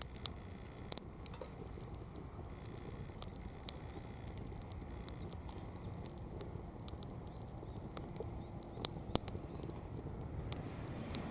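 Small wood fire crackling, with scattered sharp pops, a few near the start and two about nine seconds in, over a steady low rumble.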